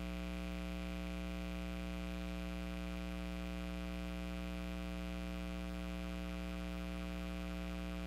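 Steady electrical mains hum, a buzz that never changes in pitch or level, with no other sound over it.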